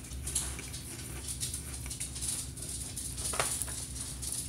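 A person chewing a crunchy, puffy shrimp chip: small irregular crunches.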